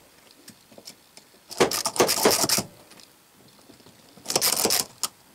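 Cordless screwdriver driving the small screws into a 3-jaw scroll chuck's back plate, in two short runs: the first about a second long, the second about half a second long, near the end.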